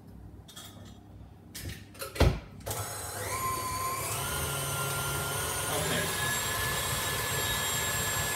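A thump about two seconds in, then a tilt-head stand mixer's motor starts and runs steadily, mixing cake batter. Its whine steps up in pitch a few times as the speed is raised.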